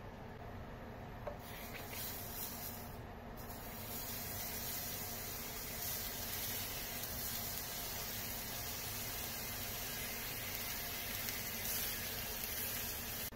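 Whole eggplants with water droplets on their skins sizzling in a hot pan, a steady hiss. It starts about a second and a half in, breaks off briefly near the three-second mark, then carries on.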